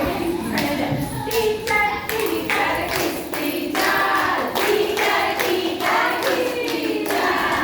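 Children singing a rhyme together, with hand clapping along to it.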